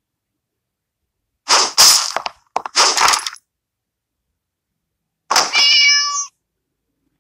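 A domestic cat meowing: a quick run of rough cries about a second and a half in, then, after a pause, one longer, clearer meow.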